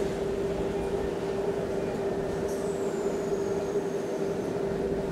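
Shinano Railway SR1-series electric train standing at a platform, its onboard equipment giving a steady hum with one constant tone over a low rushing noise. A faint high whistle falls slowly in pitch about halfway through.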